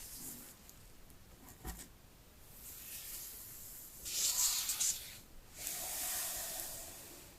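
Paper and plastic packaging of a phone box being handled: a small click, then two long, hissy rubbing scrapes, the louder one about four seconds in.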